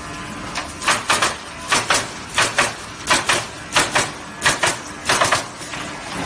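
Automatic pallet nailing machine running, its pneumatic nailing heads firing in quick pairs of sharp hissing shots about every 0.7 seconds over a steady machine hum; the firing stops a little before the end.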